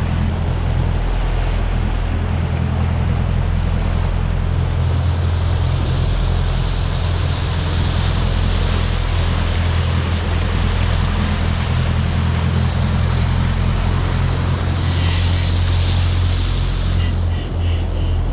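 Boat engine droning steadily while under way, with the wake churning and rushing behind the stern and wind buffeting the microphone. A few light clicks near the end.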